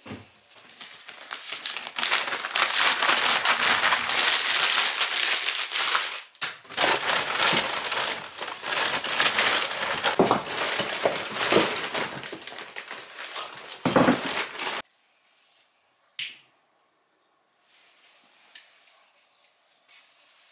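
Newspaper being crumpled and packed by hand into a fireplace grate to lay a fire, in two long spells of dense crinkling. After that it goes quiet apart from one short, sharp scrape about sixteen seconds in.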